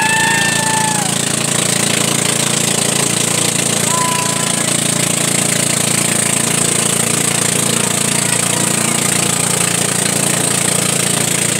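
Engine of a motorized outrigger boat (bangka) running steadily under way, with a constant hiss of wind and spray over it. A short shout near the start.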